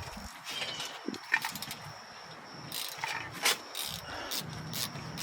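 Scattered light metal clicks and taps as a 7 mm hex bit on a ratchet is fitted into a brake caliper guide-pin bolt, about six over a few seconds.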